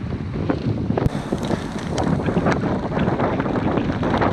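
Strong wind buffeting a bike-mounted action camera's microphone while riding, a heavy, steady rumble. Sharp knocks and clicks run through it, a strong one about a second in.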